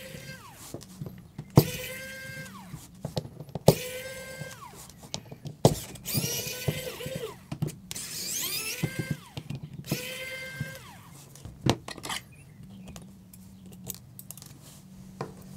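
Small electric screwdriver undoing the tiny screws on a smartphone's inner covers: several short whirring runs, each dropping in pitch as the motor stops, with sharp clicks and taps of the tool and screws in between. The last few seconds are quieter.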